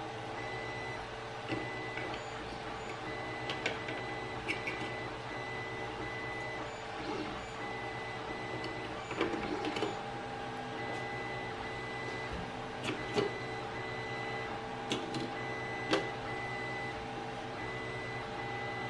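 Scattered light clicks and taps of a chartplotter's plastic housing and screen panel being handled, over a steady mechanical hum with a faint repeating on-off tone.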